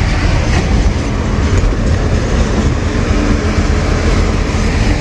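Steady, loud rumble of a goods truck driving at highway speed, heard from inside its cab: diesel engine, tyre roar and wind, with no break or change.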